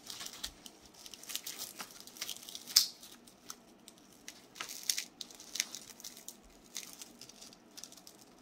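Handling noise from a Snakestaff Systems ETQ tourniquet: its strap and hook-and-loop rustling and scraping, with light clicks of the polymer windlass and clip. One sharper click comes about three seconds in.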